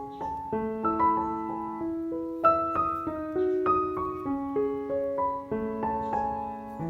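Background piano music: a slow melody of sustained notes over chords.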